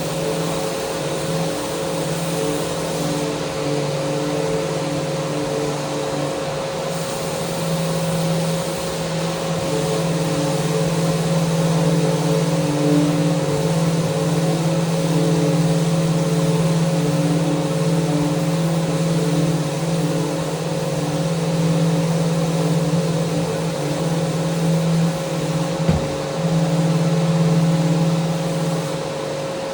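Electric power sander running steadily while sanding a handrail, its motor holding one pitch over a constant hiss. A single sharp knock about 26 seconds in.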